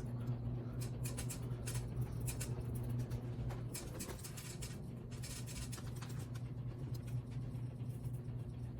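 Harbor Breeze Armitage ceiling fan running at high speed: a steady motor hum with faint, irregular ticking and rattling. The fan is out of balance and its blades rattle, which the owner puts down to a bent blade iron.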